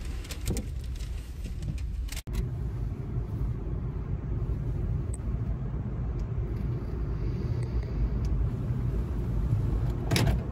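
A car running slowly as heard from inside its cabin: a steady low rumble with a faint steady hum. A few sharp clicks in the first two seconds and again near the end.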